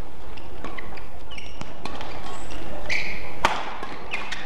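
Court shoes squeaking on a badminton court floor, with a few sharp racket-on-shuttlecock hits. The sharpest hit comes about three and a half seconds in.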